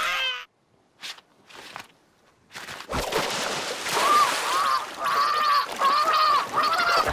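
Background music cuts off, and after a couple of near-quiet seconds there is a sharp knock. Then comes a series of about five short cries that rise and fall, a cartoon character's voice over a rushing noise.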